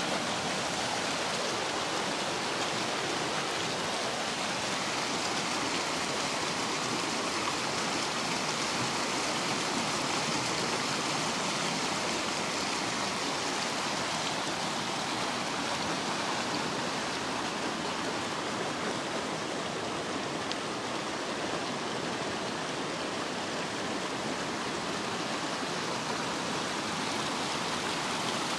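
River water rushing over rocky rapids, a steady unbroken rush of white water.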